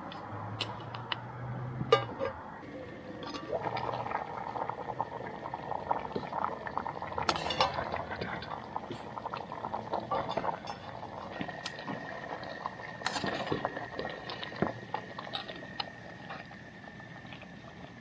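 Camp cookware and a utensil clinking and scraping, with some liquid sounds, as a hot rehydrated chili mac meal is handled. Irregular sharp clicks run throughout, and a faint steady high tone comes in about two-thirds of the way through.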